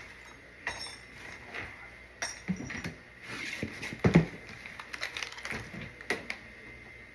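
Irregular knocks and clinks of objects being handled, some in quick runs, the loudest just after four seconds in, over a faint steady high tone.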